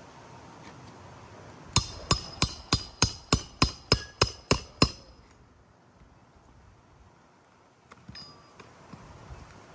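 A hammer striking metal in a quick, even run of about eleven blows, roughly three a second, each with a ringing top, typical of nailing during a roof shingle repair. A few small clicks follow near the end.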